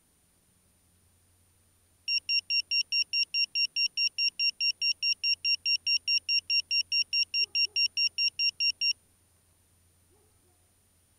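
Rapid electronic beeping: short identical high-pitched beeps, about five a second, starting about two seconds in and stopping abruptly about two seconds before the end.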